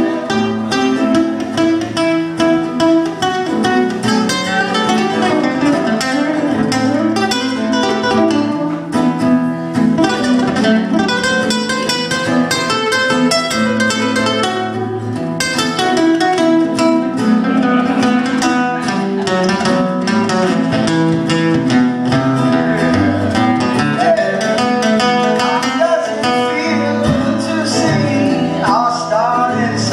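Two acoustic guitars played together live, steady picking and strumming.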